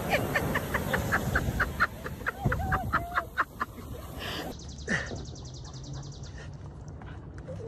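A person laughing hard in quick, high-pitched bursts, about four a second, over the rush of breaking surf. The laughter and surf stop abruptly about four and a half seconds in, leaving quieter outdoor sound.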